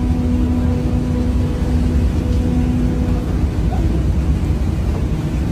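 A ship's machinery running: a steady low rumble, with a steady hum over it that stops about three seconds in.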